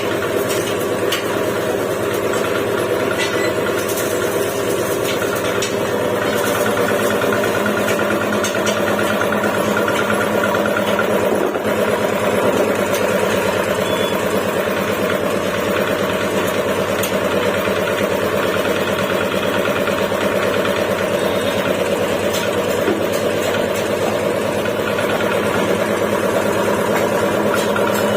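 3 hp reciprocating piston air compressor running steadily, its motor and pump holding an even pitch throughout.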